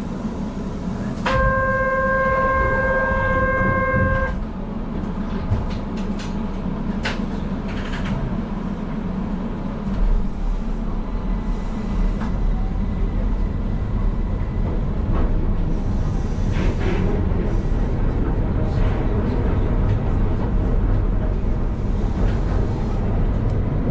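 Keihan 800 series commuter train heard from the driver's cab. It stands at a station platform with a steady pitched signal tone lasting about three seconds just after the start. About halfway through it pulls away, its low running rumble building.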